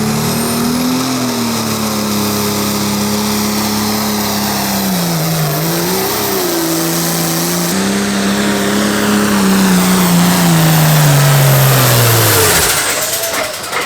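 Pro Farm class diesel pulling tractor running at full throttle down the track under the load of the sled. Its pitch sags briefly about five seconds in as it bogs and then picks back up. Near the end the engine winds down steadily as the throttle comes off at the end of the pull.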